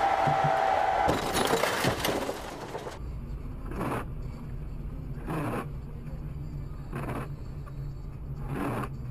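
A car collision with shattering and scraping in the first two seconds or so, over loud noise. After a cut, a car's engine hums steadily in the cabin while the windshield wipers swish about every second and a half.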